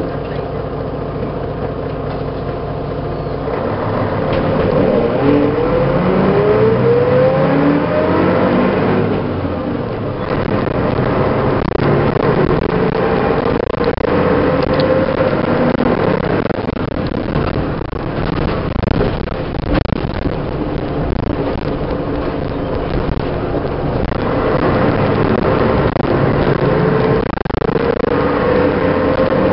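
1988 MAN SL 202 city bus's diesel engine idling, then pulling away about three and a half seconds in. Its pitch rises as it accelerates through the gears, and it rises again twice more later.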